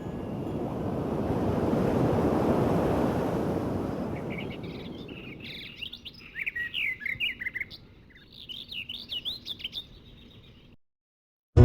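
A rushing swell of noise that builds and fades over the first few seconds, then small birds chirping in quick rising and falling calls. The birds fall silent shortly before the end.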